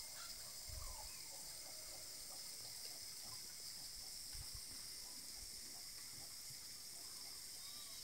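Faint outdoor ambience: a steady high hiss with a few faint bird calls now and then, and brief low rumbles on the microphone about a second in and about halfway through.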